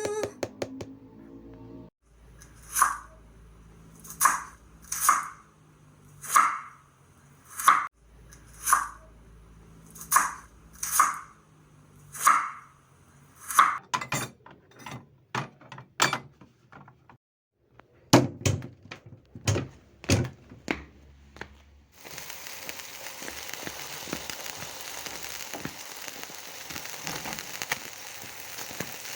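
Kitchen utensils knocking and clinking in a series of sharp strikes, roughly one a second for about twelve seconds. Then come fainter clicks and a few heavier knocks, and from about two-thirds of the way in a steady crackling hiss.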